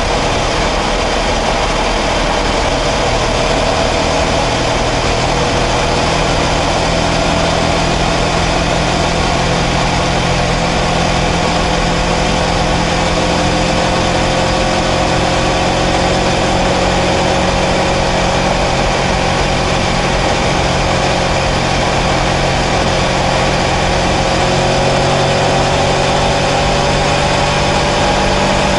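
Kawasaki Versys 650 parallel-twin engine pulling steadily at cruising speed, its pitch slowly rising as it gains revs, over a steady rush of wind and road noise.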